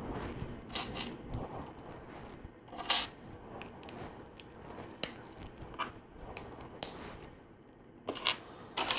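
Plastic LEGO pieces being handled and pressed together: scattered light clicks and taps, with a louder click about three seconds in and two more near the end.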